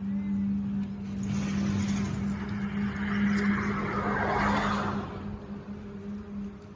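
Sugarcane juice crushing machine running with a steady low hum. A rough grinding hiss swells in about a second in and dies away about five seconds in as cane is fed through the rollers.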